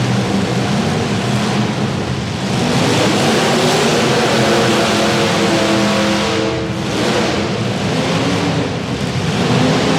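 Demolition derby car engines revving hard, several at once, over a loud dense roar; the pitch climbs and holds, drops off briefly about seven seconds in, and again near the end.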